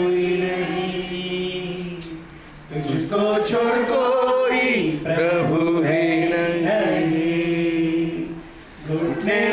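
Congregation singing a worship song together, led by a man on a microphone, in long held notes. The singing drops away briefly about two and a half seconds in and again near the end before resuming.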